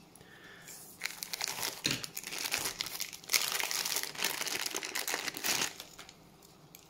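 Clear plastic bag crinkling and rustling as hands unwrap a small diecast toy car from it, starting about a second in, loudest in the second half and stopping about a second before the end.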